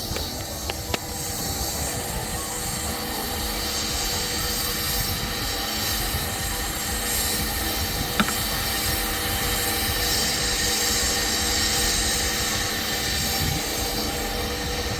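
Steady mechanical running noise with a hiss, broken by two brief clicks, one about a second in and one about midway.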